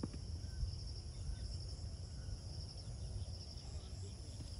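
Insects chirping in a steady, high-pitched pulsing trill, with a low rumble underneath.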